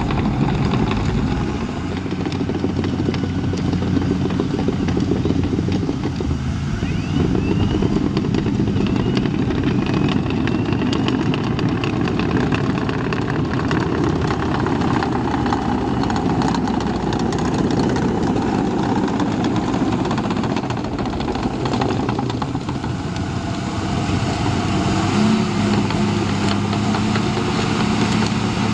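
Caterpillar D5N LGP crawler dozer working, its diesel engine running steadily over a continuous clatter of the tracks. A few faint high squeals come through about a third of the way in, and the engine note rises slightly near the end.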